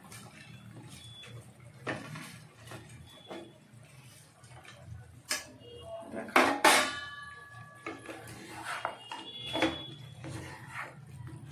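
A flat spatula scraping and knocking against a wok as fried cauliflower pieces are tipped in from a bowl and tossed in the sauce, with a few louder clanks and a brief metallic ring about six to seven seconds in.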